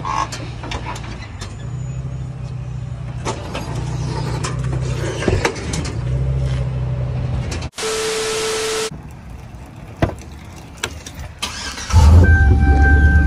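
A tow truck's engine idling with a steady low hum and scattered clicks and knocks. About eight seconds in it cuts to a second-long hiss with a steady tone, then a few knocks. Near the end a much louder engine rumble starts, heard from inside a pickup's cab.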